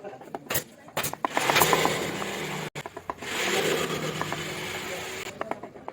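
A hand tool scraping over wood in two spells of a couple of seconds each, the first cut off suddenly, with a few sharp taps at the start and again near the end.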